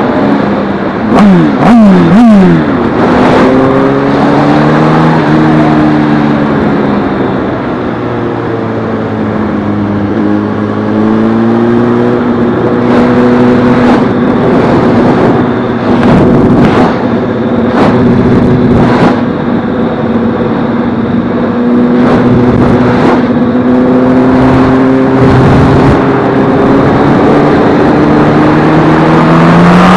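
Motorcycle engine heard from the bike itself while riding: three quick revs about a second in, then steady running whose pitch rises and falls slowly with speed and gear changes. Wind rushes over the microphone, with short gusts of buffeting.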